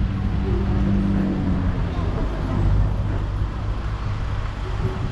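A road vehicle's engine running, a steady low hum.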